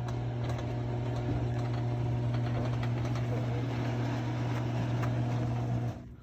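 Garage door opener's motor running steadily as the door travels, a constant low hum that cuts off suddenly near the end.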